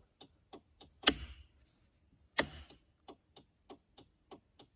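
First-generation Dodge Neon turn signal flasher clicking in an even pattern, about three ticks a second, the sign that the newly fitted signal stalk is working and flashing at a normal rate. Two louder knocks come about a second in and again near the middle.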